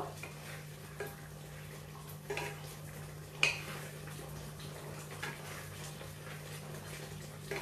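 A few scattered light knocks and clinks of kitchen utensils, the loudest about three and a half seconds in, over a steady low hum.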